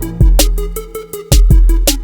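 Background music: a hip-hop style beat with deep booming bass kicks and sharp snare hits.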